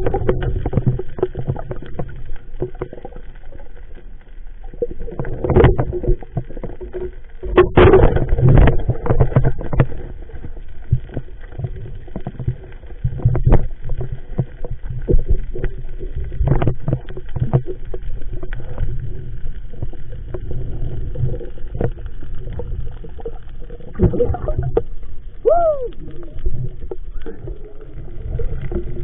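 Underwater sound picked up by a diving camera on a night reef: a steady low rumble of moving water with frequent clicks and knocks, louder surges about six and eight seconds in, and a short falling tone near the end.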